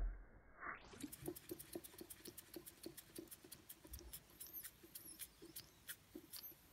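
Radiguet No. 2 model steam engine from about 1900 running slowly, giving faint, even ticks and soft puffs about four times a second, with a couple of faint high squeaks.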